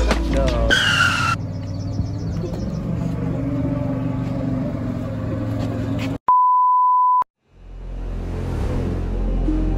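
Edited soundtrack: background music stops about six seconds in for a single steady beep tone lasting about a second, set between two short silences, then the music fades back in.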